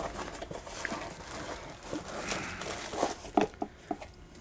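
Cardboard packing pieces and a plastic bag being handled: soft rustling, with a few small knocks about three seconds in.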